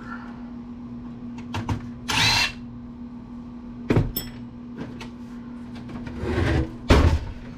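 A power driver briefly spins out a screw holding a computer circuit board, with a short whine about two seconds in. Knocks and clicks from handling the metal case follow, with a loud knock near the end.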